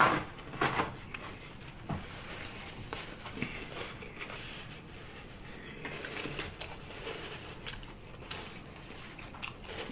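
Close-miked chewing of fast food with soft wet mouth smacks, and a few sharper clicks in the first few seconds.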